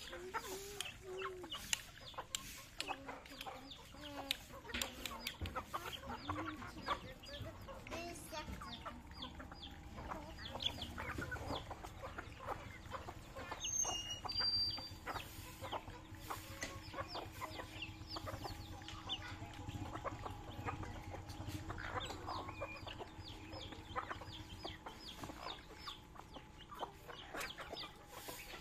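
A flock of native chickens clucking softly while they feed, with many quick taps of beaks pecking grain off a concrete floor. A few high chirps sound about halfway through.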